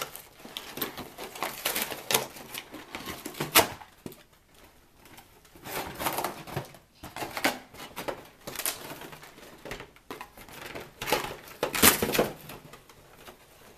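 Cardboard toy box being pulled open by hand: irregular scraping and rustling of cardboard, with several louder sharp rips and flaps.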